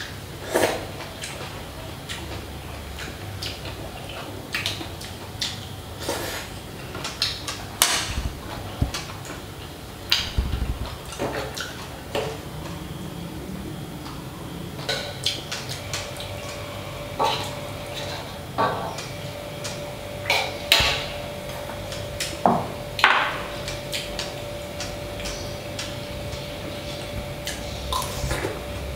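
Chopsticks and a metal ladle clinking and tapping against a steel pot and a ceramic bowl while soup is served and eaten, many separate sharp clicks, over a steady fan hum. A faint steady tone joins in about halfway through.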